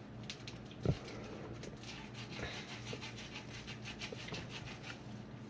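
Faint small clicks and handling noises, with one soft knock about a second in, over a low steady hum.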